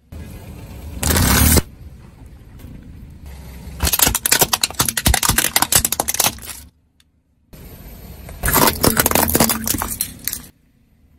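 Car tyre rolling over and crushing brittle objects, dry pasta and small plastic toys, with crunching and cracking in three separate bursts, the longest about four seconds in, and short silent gaps between them.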